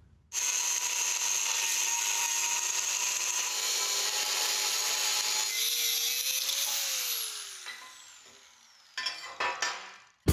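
Angle grinder cutting through a steel suspension bracket to trim it shorter: it starts abruptly, runs with a steady whine and grinding noise, then its pitch falls and it fades out as the disc spins down. A few knocks follow near the end.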